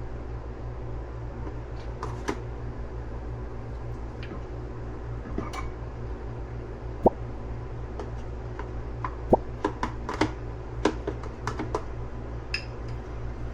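Scattered light clinks and clicks of small hard objects being handled, more of them in quick succession over the last few seconds, over a steady low hum.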